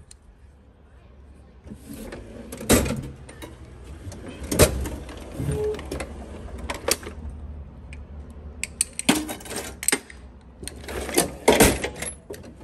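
Metal hand tools clanking and clattering in the drawers of a steel rolling tool chest as drawers are pulled open and pushed shut. There are several sharp clanks spread through, with a cluster of them near the end.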